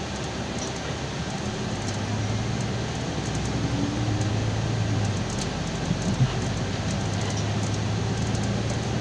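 Inside the cabin of a Golden Dragon XML6125 city bus on the move: steady engine and road noise, with a low drone that comes in about two seconds in. A short knock sounds a little after six seconds in.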